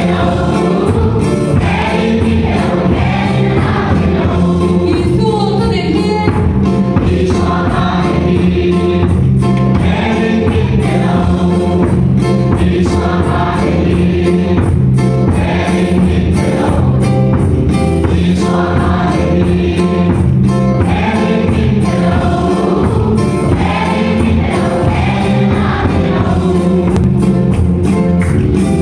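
A church congregation and children singing a lively gospel song together, with electronic keyboard accompaniment and a steady beat.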